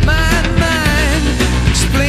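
Live band music with a voice singing a melody over drums and steady low notes.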